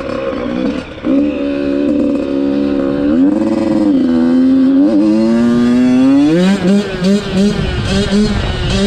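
Dirt bike engine running hard while being ridden, holding a steady pitch with a brief drop and recovery about three seconds in. From about six seconds the revs rise and go choppy with on-off throttle.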